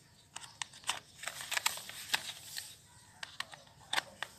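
Hard plastic parts of a toy dinosaur being handled and pushed together, the head fitted onto the body: a string of irregular light clicks and scrapes.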